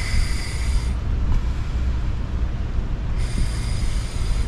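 Scuba regulator's second stage hissing as air is drawn through it in two breaths about three seconds apart, over low wind rumble on the microphone.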